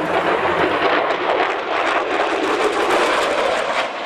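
F-16 fighter jet flying past, its engine a loud, steady jet roar with a rapid crackle running through it.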